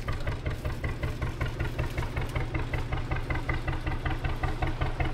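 A narrowboat's diesel engine chugging steadily at low revs, a fast, even beat that runs without a break.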